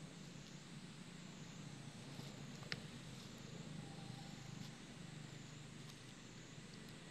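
Faint, steady low background hum with one sharp click nearly three seconds in.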